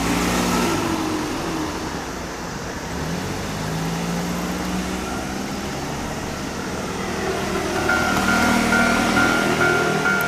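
Road traffic at a railway level crossing, one vehicle's engine rising in pitch as it pulls away. About eight seconds in, the crossing's electronic warning bell starts: an even, repeated ding about two and a half times a second, in the old JR standard tone, signalling that a train is approaching.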